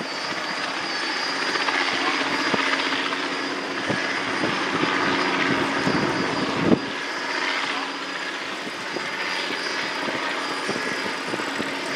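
Sikorsky S-58T turbine helicopter flying overhead with a sling load, its rotor and engines making a steady drone. There is a single short knock about two-thirds of the way through.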